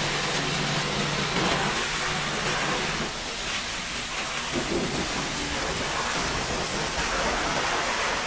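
High-pressure washer jet spraying water against the steel side panels of a livestock truck body: a steady rushing spray with water spattering off the metal.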